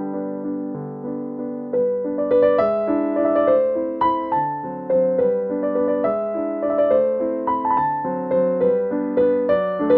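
Background piano music: a gentle melody over held chords, becoming fuller and louder about two seconds in.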